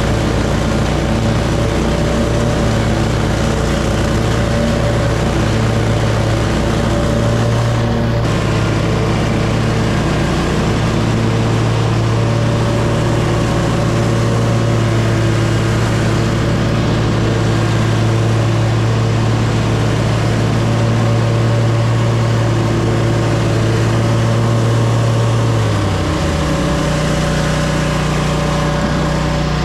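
Riding lawn mower engine running steadily while mowing. Its note changes about eight seconds in and drops slightly lower in pitch near the end.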